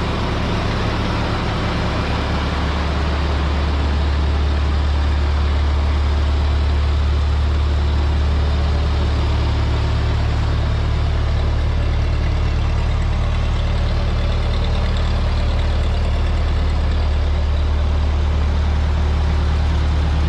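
Ford 8N tractor's four-cylinder flathead engine running steadily, with an even low engine note, shortly after a cold start on fresh oil. It gets a little louder over the first few seconds, then holds steady.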